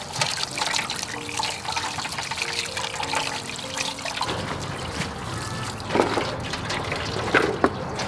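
Water splashing and dripping as chunks of raw meat are washed by hand in a metal bowl, lifted out so the water runs off them, with a few sharper splashes near the end.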